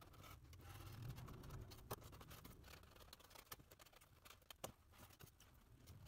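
Near silence with faint handling noises: foam board pieces being lifted and tapped, giving a few light clicks about two, three and a half and four and a half seconds in.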